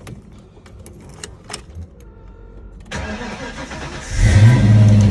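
A few light clicks, then a 1995 Ford Mustang GT's 5.0 (302) V8, breathing through shorty headers and a Flowmaster exhaust, cranks about three seconds in and fires about a second later, settling into a steady, loud idle. It is the first start on a freshly replaced harmonic balancer, and the engine runs smoothly.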